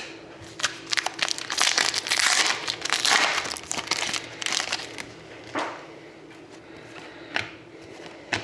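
Trading card pack wrapper crinkling and rustling as it is handled and opened, loudest for a few seconds early on, then scattered light clicks and rustles as the cards are handled.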